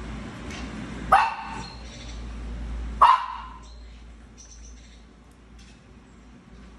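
Small dog barking twice, two sharp single barks about two seconds apart, excited by a squirrel on the TV screen.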